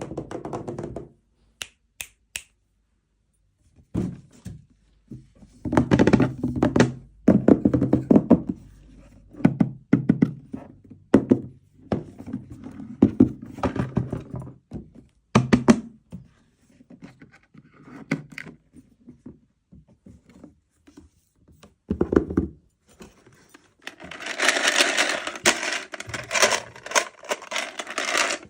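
Hands opening and handling miniature toy packaging: irregular thunks, taps and knocks on plastic, with a denser few-second stretch of rustling near the end.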